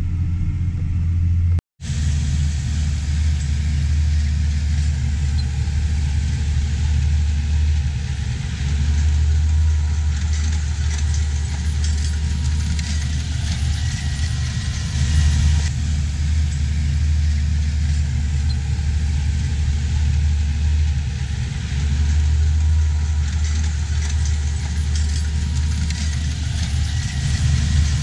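Versatile 260 tractor's diesel engine running steadily under load while pulling a 16-row corn planter: a constant low hum with a hiss of field noise over it. The sound drops out for a split second about two seconds in.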